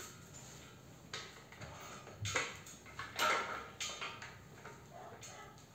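Light metallic clinks and scrapes from a steel square tube being handled and shifted on a drill stand's base, the two loudest knocks about two and three seconds in.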